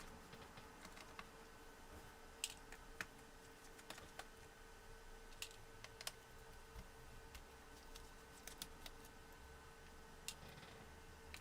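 Faint, scattered clicks and taps of a small screwdriver undoing the screws around a netbook's plastic bottom case, with a faint steady hum underneath.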